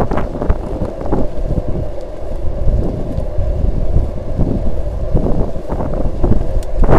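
Wind buffeting the microphone of a camera on a moving bicycle: a loud, low rushing that swells and drops unevenly.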